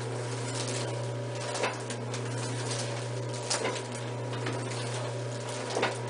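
Steady electric hum of a chiropractic treatment machine running, with three short soft clicks or rustles about two seconds apart.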